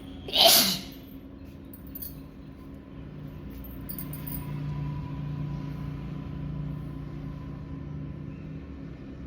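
A person sneezing once, sharply and loudly, about half a second in. A quieter, steady low drone follows for about five seconds.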